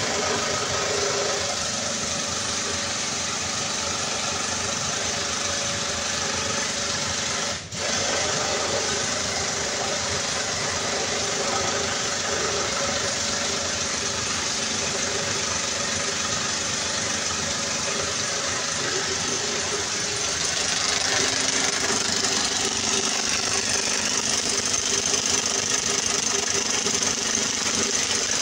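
Motor-driven oil-flushing pump running steadily with a dense rattling hum, circulating flushing oil through a diesel engine. It drops out for a moment about eight seconds in and gets a little louder in the last third.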